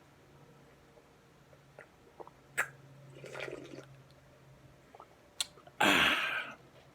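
Slurping of pho: a soft slurp about three seconds in, then a loud, wet slurp of broth and noodles about six seconds in, with a couple of sharp clicks before each.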